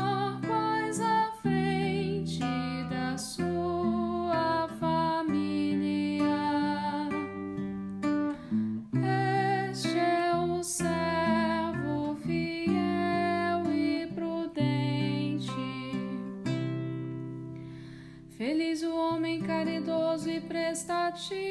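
Instrumental interlude of a Catholic liturgical song: acoustic guitar accompaniment with a wavering melody line above it. The music thins out and dips briefly near the end before a new phrase begins.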